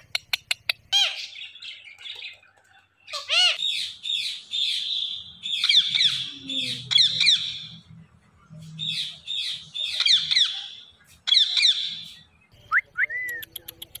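Rose-ringed parakeets calling in repeated bursts of harsh squawks and chirps, after a quick run of clicks at the start, with a short whistled glide near the end.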